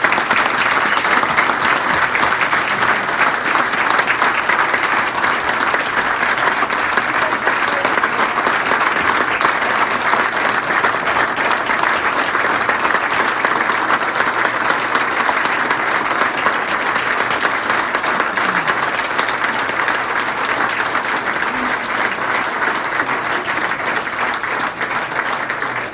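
A roomful of people applauding, a long standing ovation that starts suddenly and eases off slightly near the end.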